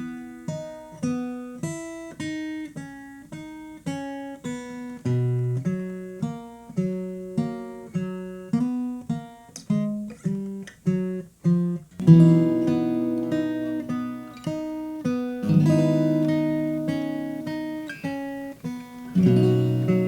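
Instrumental song intro on acoustic guitar: single picked notes, about two a second, then fuller strummed chords a little past halfway.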